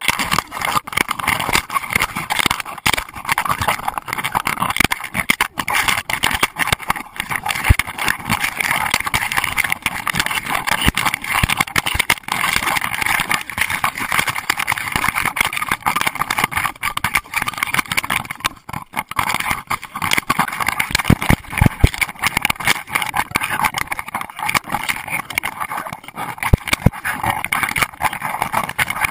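Continuous rubbing, rattling and knocking of a GoPro Hero2 in its waterproof housing, loosely fixed under a Doberman's chin and jostled as the dog moves and runs; a dense run of clicks and scrapes without a pause.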